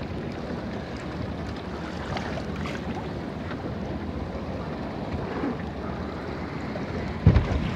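Steady wind buffeting the microphone and water washing against a small open boat, with a single dull thump about seven seconds in.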